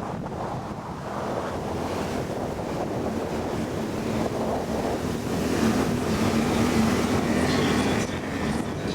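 Evinrude E-TEC 60 hp outboard motor running on a moving boat, half buried under heavy wind buffeting on the microphone. The engine tone and overall level rise over the second half, then drop suddenly near the end.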